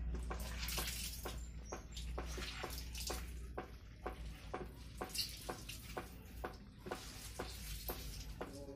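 Wet shredded mushrooms being squeezed by hand, with small wet squelches and water dripping and splattering onto a concrete floor, several short clicks a second over a steady low hum.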